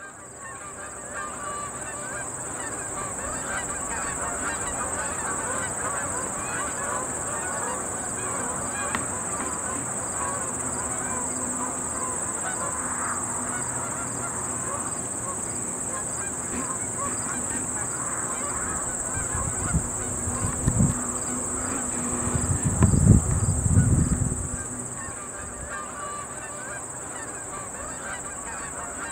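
A large flock of birds calling all at once, a dense continuous chatter of honking calls, over a steady high whine. About two-thirds of the way through, a few low rumbles break through for several seconds and are the loudest sounds.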